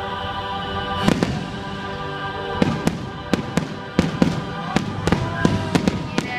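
Aerial fireworks bursting in quick succession: about a dozen sharp bangs and crackles starting about a second in, with music playing underneath.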